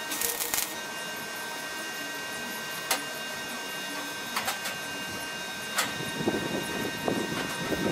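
A steady hum broken by a few short, sharp crackles of brief welding tacks on a sheet-steel panel. Wind buffets the microphone in the last two seconds.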